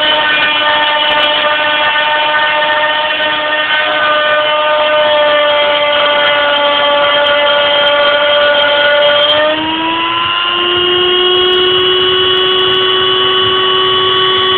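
CNC milling machine cutting ABS plastic: the spindle motor's steady whine. The pitch sags slightly over the first nine seconds, then rises to a higher steady pitch about ten seconds in.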